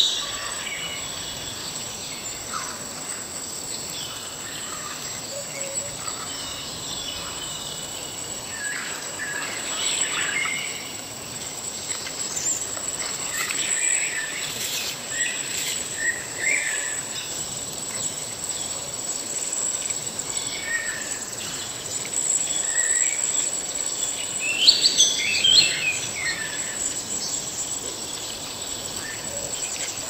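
Forest ambience: a steady high-pitched insect drone runs throughout, with bird chirps scattered over it, loudest in a cluster about three-quarters of the way in, above a soft, even rush of water and wind.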